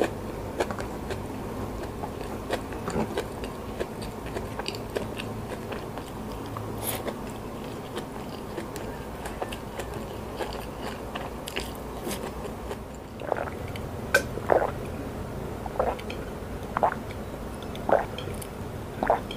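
Close-miked chewing with small crunches as the last fried scraps are picked from the plate and eaten. Near the end it gives way to a series of about seven gulps of water, roughly one a second.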